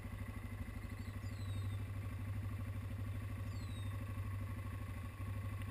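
ATV engine running steadily at low revs, an even low throb.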